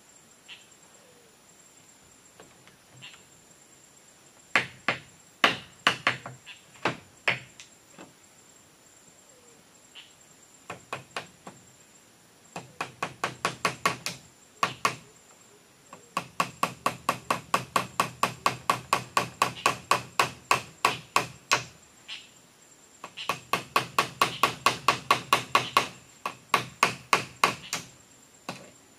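Hand hammer striking bamboo roof poles and the hut's wooden frame as the bamboo roof is fixed in place. A few scattered blows come first, then fast runs of about four strikes a second with short pauses between them.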